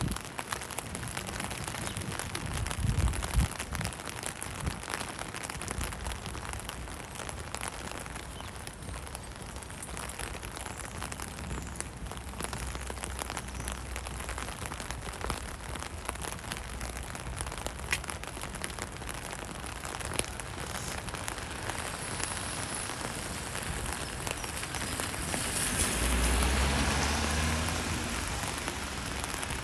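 Steady rain falling, an even hiss scattered with small drop ticks. About 26 seconds in, a louder low rumbling swell rises over it and fades within a couple of seconds.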